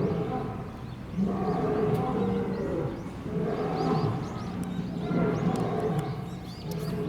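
Asiatic lion roaring: a series of long, deep pitched calls repeated every second or two.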